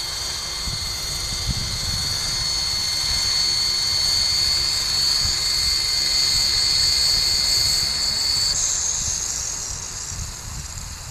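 Electric coaxial RC model helicopter with a brushless motor and two contra-rotating three-blade rotors, flying with a steady high-pitched whine that creeps slightly upward in pitch. About eight and a half seconds in the whine changes pitch abruptly, and the sound then grows fainter.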